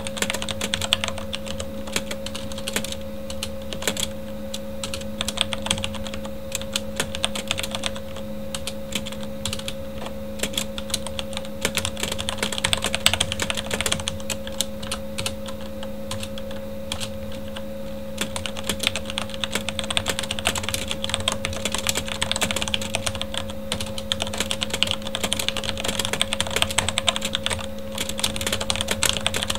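Fast, continuous typing on a Corsair K70 mechanical keyboard with Cherry MX Red linear switches: a dense stream of key clacks and bottoming-out taps. A steady computer-fan hum runs underneath.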